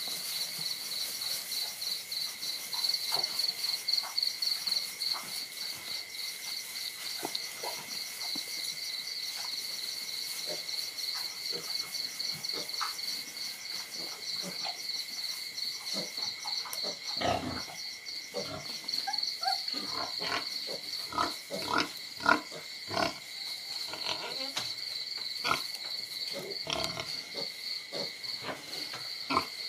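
Crickets chirping steadily. From about halfway on, puppies give short yips and growls in quick succession as they play-fight with a kitten.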